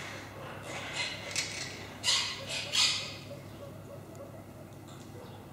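Monk parakeets giving short, harsh squawks, about five in quick succession in the first three seconds, over a steady low hum.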